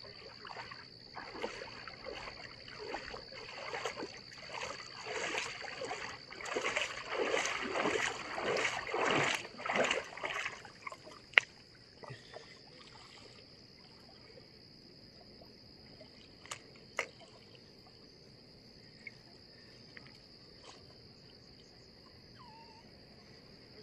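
Water splashing as a common carp thrashes and is handled in shallow water: repeated splashes that grow louder, then stop about ten seconds in, followed by a few small knocks.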